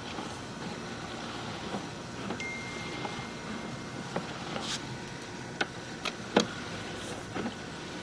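Sewer inspection camera and its push cable being fed down a PVC sewer pipe: a steady hum with scattered clicks and knocks, a few close together past the middle, and a brief thin high tone about two and a half seconds in.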